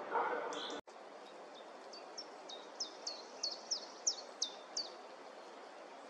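Common chiffchaff singing: a run of about ten short, sharply falling high notes at roughly three a second, beginning about two seconds in.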